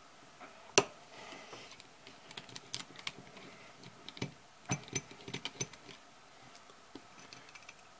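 Scattered small clicks and taps of a screwdriver working a screw loose on a Pietta 1851 Navy cap-and-ball revolver, metal on metal. One sharper click comes about a second in, then irregular runs of light clicks.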